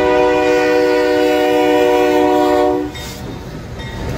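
Freight locomotive's Nathan K3LA three-chime air horn sounding one long held chord, which cuts off about three seconds in. The train's rumble and rail noise carry on as it rolls through the crossing.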